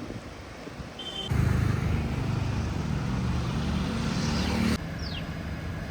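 A car engine running, cutting in abruptly about a second in and cutting off abruptly a little over three seconds later. Two short falling chirps follow near the end.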